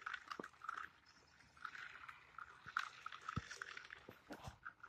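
Faint, irregular crunching of gravel on a dirt path, as footsteps and a small RC rock crawler's tyres roll over it, with a couple of sharper knocks about three and a half seconds in and near the end.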